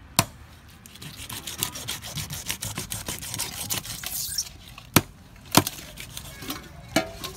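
Kitchen knife cutting raw frog on a wooden chopping board. There is a sharp knock of the blade on the wood right at the start, then a few seconds of quick scraping cuts, then three more knocks near the end.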